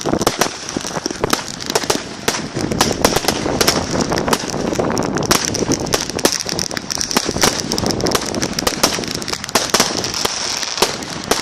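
A fireworks display going off: a dense, irregular run of sharp cracks and bangs, several a second, without a break.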